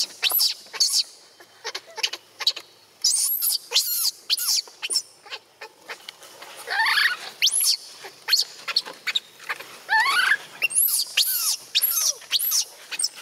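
Infant long-tailed macaque crying: a rapid string of short, high-pitched squeaks, with longer wavering whimpers about seven and ten seconds in.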